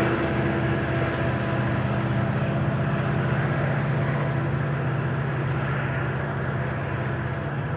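Diesel locomotives working hard under load, a steady drone that slowly fades, mixed with the rolling rumble of loaded coal hopper cars.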